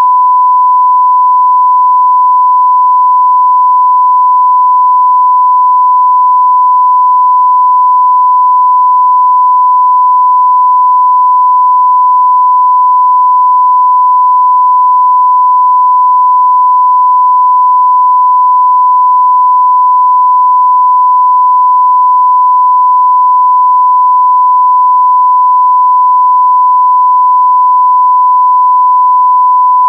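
Censor beep: one loud, steady tone held without a break.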